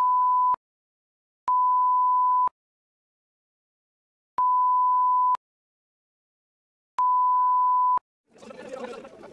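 Censor bleeps: a steady, pure high-pitched beep of about a second, sounding four times with dead silence between, the first already under way. Background noise from the field returns about a second before the end.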